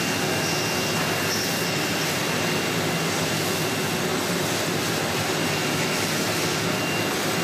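Steady machine noise: an even, continuous whirring with a thin high whine held throughout, as of machinery running.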